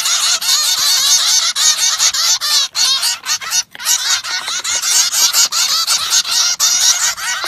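A bird calling in a rapid, nonstop run of short, high chirping calls, with two brief breaks about three seconds in.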